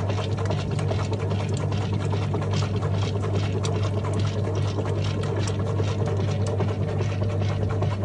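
GE Profile top-load washing machine running, with a steady motor hum and many rapid irregular clicks.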